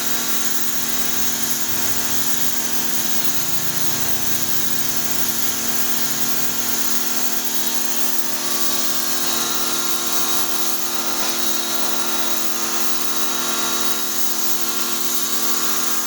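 Pressure washer running steadily: a constant machine hum with a strong hiss over it.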